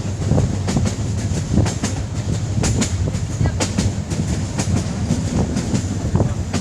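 Train running along the track, a steady low rumble with the wheels clacking over rail joints several times a second.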